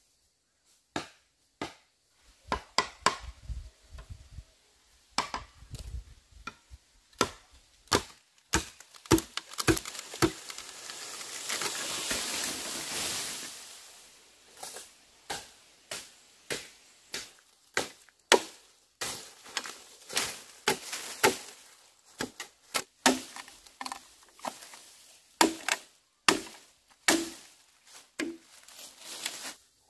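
Machete chopping green bamboo: a string of sharp, irregular cutting strokes, with a longer noisy rush lasting a few seconds midway.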